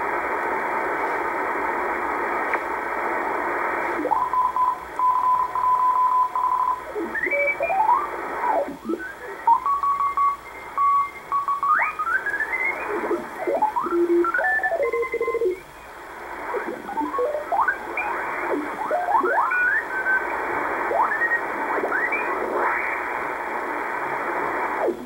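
Icom IC-R8500 communications receiver's audio in CW mode while being tuned up through the 20-metre amateur band: a steady shortwave hiss, with Morse code tones sweeping up or down in pitch as the dial passes each signal. From about four seconds in, a couple of signals are held in tune long enough to be heard keyed in Morse.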